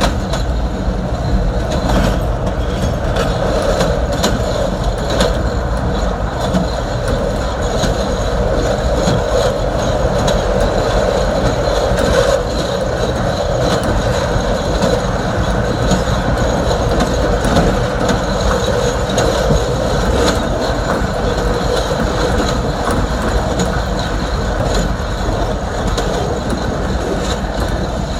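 CTA Green Line elevated train running on the steel 'L' structure: a steady rumble with frequent clicks of the wheels over the rail joints.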